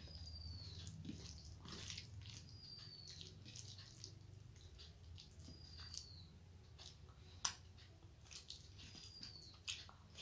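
Fingers mixing rice with mashed potato and poppy-seed paste on a plate: faint moist squishing and soft crackles, with one sharp click about two-thirds of the way in. A bird's short high chirp that falls in pitch repeats four times, about every three seconds.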